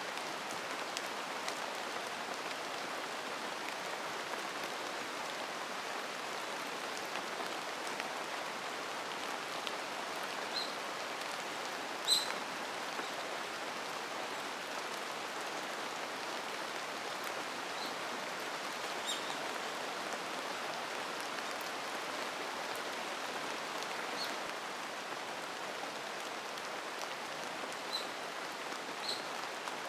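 Steady rain falling, with a few brief high bird chirps scattered through it, the loudest about twelve seconds in.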